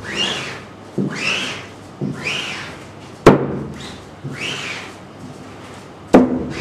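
Squeegee dragged back and forth across an ink-loaded screen-printing mesh, forcing opaque ink through the screen: a rasping, squeaky stroke about once a second, each rising in pitch. Two sharp knocks, the loudest sounds, come about three seconds in and near the end.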